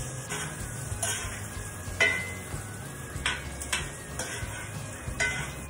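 Sausage pieces sizzling in butter in a cast iron skillet while a utensil stirs them, scraping and clinking against the pan several times.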